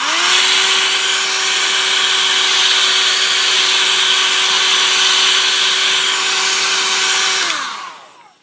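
Handheld hot-air blower switched on and running with a loud rush of air and a steady motor whine, then switched off about seven and a half seconds in, its pitch falling as the fan spins down. It is heating a phone's LCD so the screen can be pried out without breaking.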